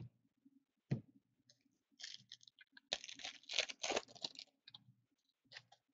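Trading-card foil packs and cards being handled on a table: a sharp click about a second in, then a few seconds of crinkling and rustling with small clicks.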